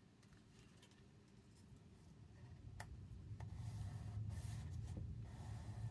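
Faint paper crafting sounds: soft rubbing of paper and a few light taps while paper is worked onto a small cardboard box, over a low hum that grows louder about halfway through.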